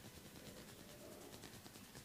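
Very faint rubbing of hands on skin during a massage, with a few soft ticks; close to silence.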